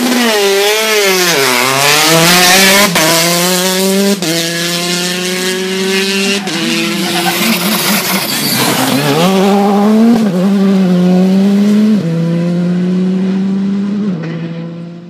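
Rally car engines at full throttle, revving hard through the gears. The pitch climbs and drops sharply at each gear change, dips near the middle and picks up again. The sound cuts off abruptly at the end.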